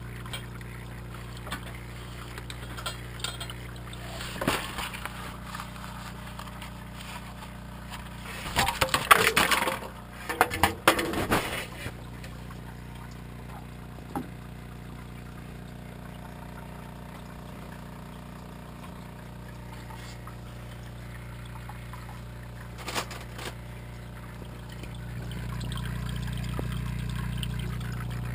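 Steady low hum of aquarium equipment, with a cluster of rustling knocks about nine to twelve seconds in and the hum growing louder near the end.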